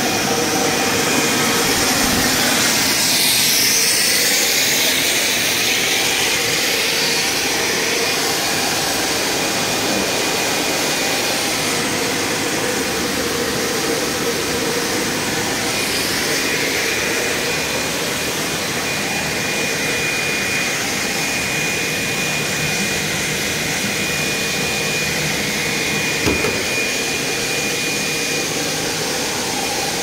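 Steady running noise of a plastic EVA spiral hose extrusion line: motors and blowers humming, with a thin, steady high-pitched whine over the drone. A single short knock comes near the end.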